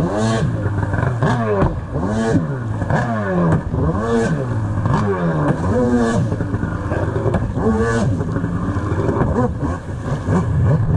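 Stand-up jet ski engine revving up and down over and over, the pitch climbing and falling about every three-quarters of a second. Near the end it runs more evenly.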